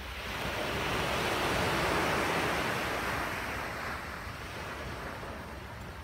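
Ocean surf: a wave breaks and washes in, its hiss swelling to its loudest about two seconds in and then fading, over a steady low rumble.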